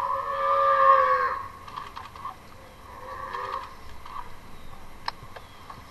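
Wild boar giving one long squeal that falls slightly in pitch over about a second and a half while a tiger bites it, then fainter short cries and a single sharp click near the end.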